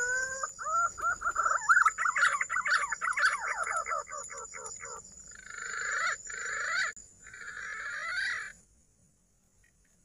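Green pigeon (punai) call: a whistled glide, then a quick run of warbling whistled notes, then three harsher, grating phrases that stop about eight and a half seconds in.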